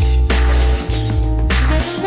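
Electronic music with a heavy bass line and a steady drum beat.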